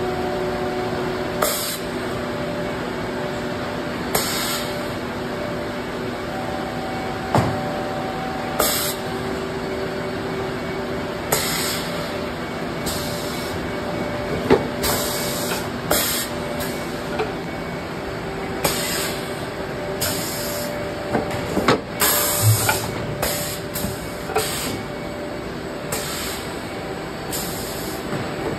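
Corrugated-board conveyor and palletizing line running: a steady machine drone with a few held tones, broken every few seconds by short hisses of compressed air from pneumatic valves and an occasional clunk, coming more often in the second half.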